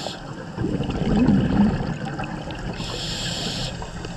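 Scuba diver breathing through a regulator underwater: a burbling exhale of bubbles about a second in, then a hissing inhale through the regulator about three seconds in.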